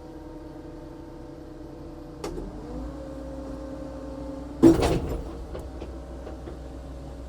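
Cat 299D3 compact track loader's diesel engine running while the machine reverses slowly with its right track off. About two seconds in the engine comes under more load and its tone rises, and a little past the middle there is one loud clunk, the loudest sound.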